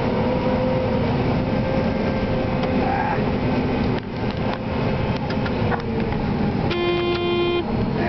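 John Deere 9500 combine running steadily while harvesting corn: a constant mechanical din of machine and header, heard from inside the cab. Near the end a single steady horn-like tone sounds for just under a second.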